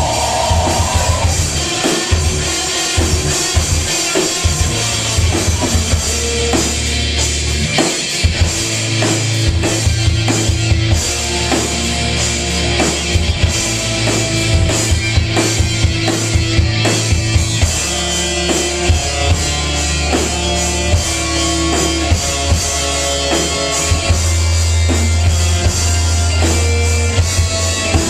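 Live rock band playing: drum kit, electric guitars, bass guitar and keyboard, with dense drum hits over sustained low bass notes.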